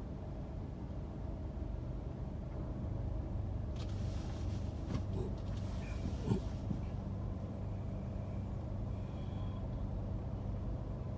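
City traffic at a standstill: a steady low hum of idling engines, with a burst of hissing from about four to seven seconds in and a brief sharp sound in the middle of it.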